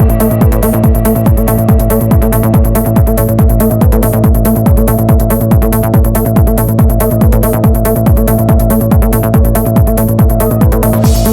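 Background electronic dance music with a steady kick-drum beat and fast hi-hats.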